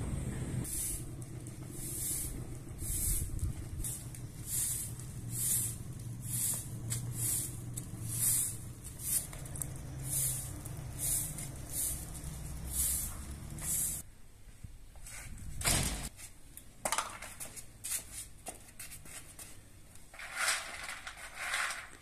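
Short straw broom sweeping a paved yard in brisk, evenly repeated strokes, about one and a half a second, over a low steady hum. The sweeping stops about two-thirds of the way in. One louder swish follows, then scattered light clicks.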